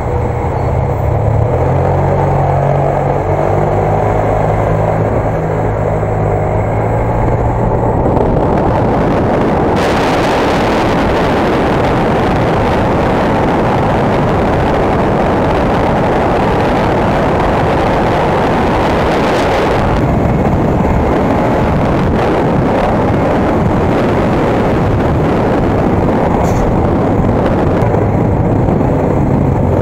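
Motorcycle engine running with a steady low note while riding. From about 8 s in, a loud rush of wind on the microphone at road speed covers it, easing off about 20 s in as the engine note comes back.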